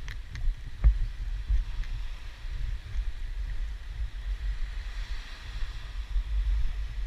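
Wind buffeting a handheld camera's microphone in uneven gusts, with a faint hiss of surf behind it. A few sharp clicks and one louder knock come within the first second.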